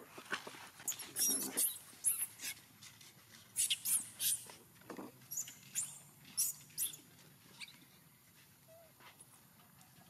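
Young macaque giving a string of short, shrill squeals, one after another through the first seven seconds, then falling quiet.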